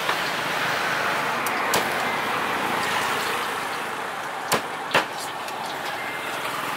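Steady street noise of passing traffic, broken by three sharp knocks: one a little under two seconds in and two close together around the five-second mark.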